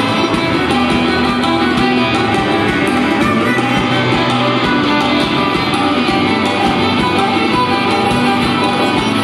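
Live band playing an instrumental piece: violin over electric guitars, with a drum kit keeping a steady beat.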